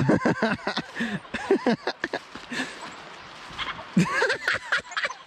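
Backyard chickens clucking in short calls, in a bunch near the start and again about four seconds in, as they are shooed across the yard.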